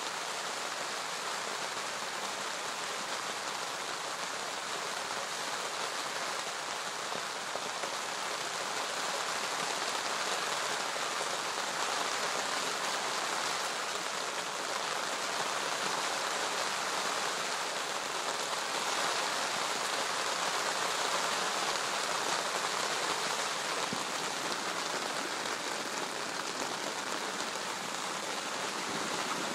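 Steady rain falling on lake water and a wet gravel bank: an even hiss that grows a little louder through the middle.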